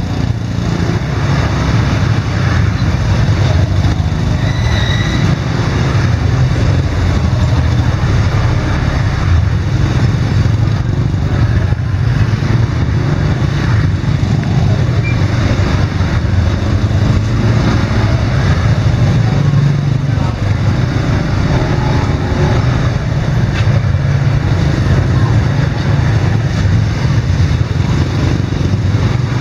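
Small motorbike engines running steadily as several scooters ride in close file through a narrow alley.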